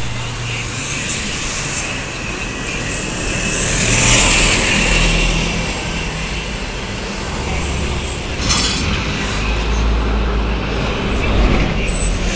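City buses and cars passing close in street traffic: diesel bus engines running, with a loud air-brake hiss about four seconds in and a knock a few seconds later.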